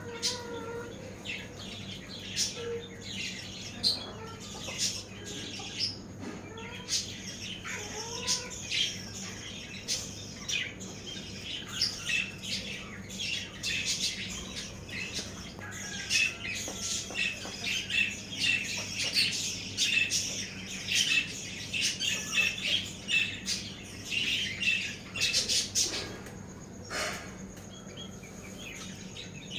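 Birds chirping: many short, quick calls overlapping, busiest through the middle and later part, with a few lower, sliding calls in the first several seconds.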